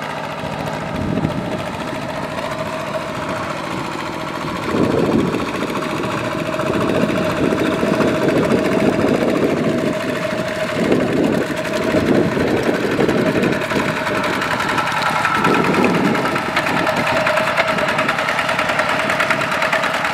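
Single-cylinder diesel engine of a two-wheel walking tractor running steadily under load as it pulls a plow through a flooded rice paddy, with louder, rougher stretches from about five seconds in to about sixteen seconds.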